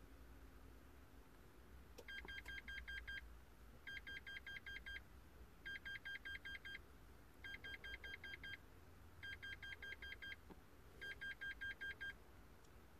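Electronic warning beeper sounding six bursts of rapid, high beeps, each burst about a second long, repeating nearly every two seconds and stopping about a second before the end.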